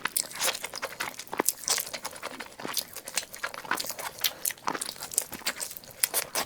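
A person biting and chewing chicken close to the microphone, with a dense, irregular run of crunches and crackles.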